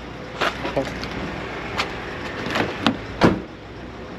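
About six sharp knocks and clanks at uneven intervals, over the low hum of an idling truck engine.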